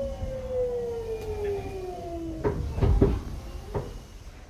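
Semboku 5000 series train's Hitachi GTO-VVVF inverter whining in a steady falling pitch as the train brakes, fading out about two and a half seconds in as it comes to a stop. A few sharp knocks and clunks from the car follow, the loudest about three seconds in.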